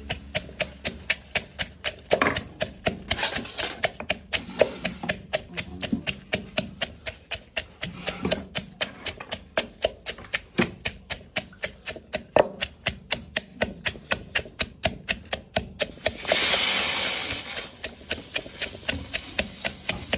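A pestle pounding chillies, garlic and shallots in a clay mortar, steady knocks at about three to four a second, crushing them into a paste. Near the end a brief hiss lasts about a second and a half.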